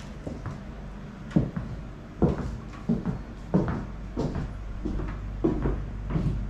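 Footsteps on a wooden floor, about one step every 0.7 s, over a low steady hum.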